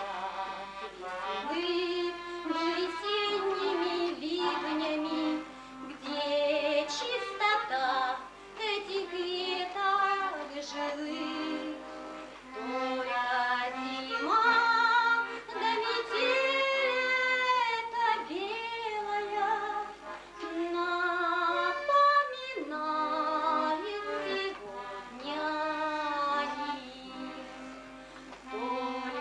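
A woman singing a song with instrumental accompaniment, holding long notes with vibrato.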